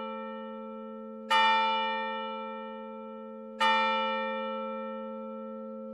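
Church bell tolling one note: struck twice, a little over two seconds apart, each stroke ringing on and slowly dying away.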